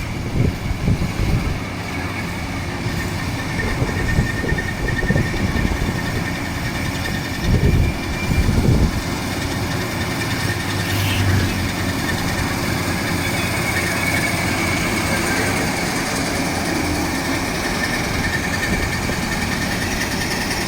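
Combine harvester running steadily, a constant machine noise with a thin high whine over it. A few low bumps come near the start and around eight seconds in.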